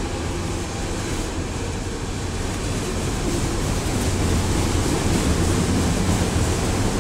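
Freight train of autorack cars rolling past close by: a steady rumble and rush of steel wheels on rail, growing a little louder about halfway through.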